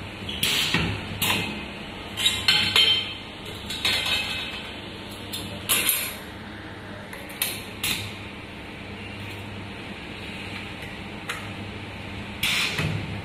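Irregular metal clinks and knocks from a metal ring workpiece being handled in a laser welding machine's clamping fixture, over a steady low machine hum.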